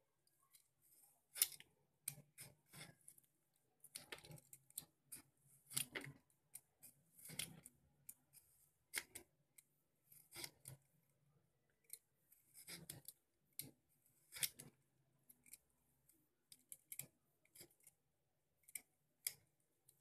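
Vegetable peeler scraping the skin off a ripe mango in short, irregular strokes, each a brief faint rasp.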